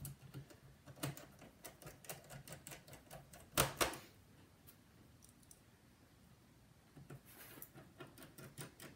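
Faint, irregular small clicks and taps of a precision screwdriver and fingers on a laptop's bottom case as the last panel screws are driven in, with a louder double knock about three and a half seconds in. The clicking pauses for a few seconds and picks up again near the end.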